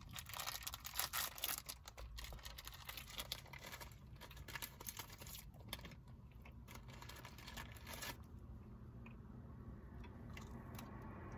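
A plastic snack wrapper crinkling and being torn open, with dense faint crackles that thin out to a few scattered clicks after about eight seconds, as the snack is chewed.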